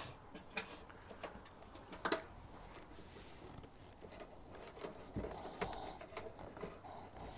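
Faint, scattered clicks and taps of a bent coat-hanger wire hook and an electrical cable being handled and pulled, with a couple of soft thumps about two-thirds of the way in.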